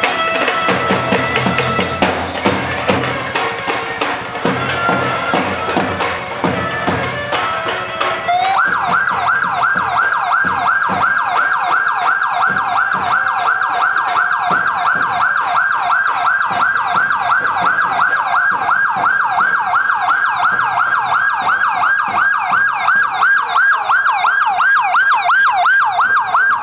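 Music with a drum beat, cut off about eight seconds in by a police siren yelping: a fast up-and-down wail at about three cycles a second, held steady.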